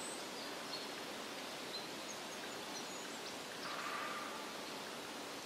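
Open-air countryside ambience: a steady soft rustling hiss with a few faint, short high chirps scattered through it, swelling briefly about four seconds in.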